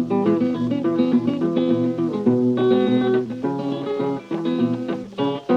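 Acoustic guitar playing a blues instrumental break: a quick run of picked notes with no singing.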